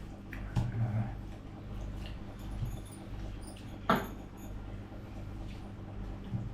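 Quiet mouth and eating noises during a meal eaten by hand, with one sharp click about four seconds in.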